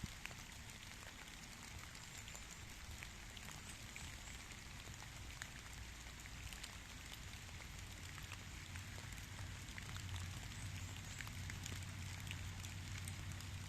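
Steady light rain falling, with many separate drops ticking sharply. A low rumble comes up and grows louder in the second half.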